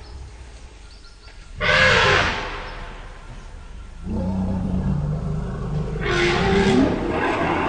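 African forest elephants calling in alarm after being startled. A loud high call comes about a second and a half in, then from about four seconds a steady deep rumble, with a second loud high call over it near the end.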